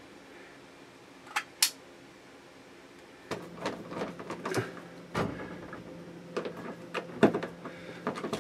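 Two short clicks about a second and a half in, then a hand screwdriver driving a screw through a stainless shower wall-mount plate bedded in silicone: irregular small scrapes and clicks over a faint steady hum.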